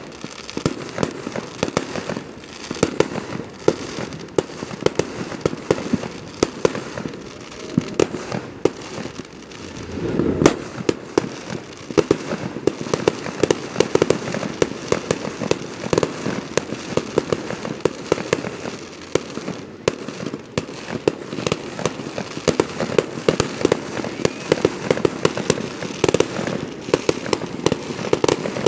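Aerial fireworks launching and bursting in rapid succession: a dense, continuous string of bangs and pops, with a louder volley about ten seconds in.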